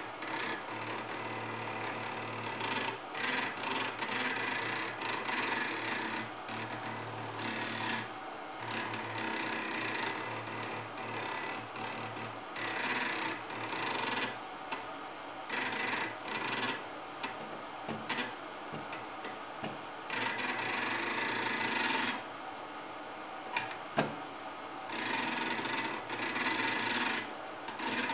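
Small stepper motor of a salvaged CD/DVD drive's laser sled, driven through an H-bridge, buzzing and rasping in irregular stop-start bursts as its speed follows the mouse's sideways movement. There are two sharp clicks near the end.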